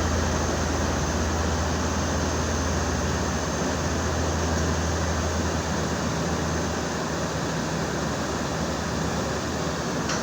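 Steady engine rumble from heavy machinery, with a low hum that fades about seven seconds in, over an even wash of noise.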